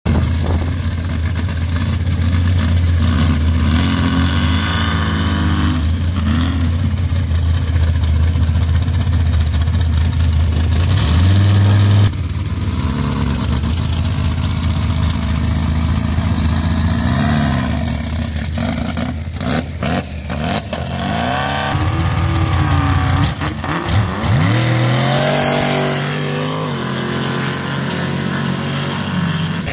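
Sand drag buggy and sand rail engines running and revving hard while the machines spin on paddle tires in loose sand. A steady drone climbs in pitch and breaks off suddenly about twelve seconds in, then other engines rev up and down in rising and falling sweeps.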